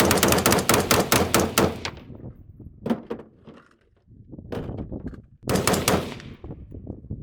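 Rapid gunfire: a fast string of shots, about seven a second, that stops about two seconds in, a few single shots, then another short rapid string about five and a half seconds in.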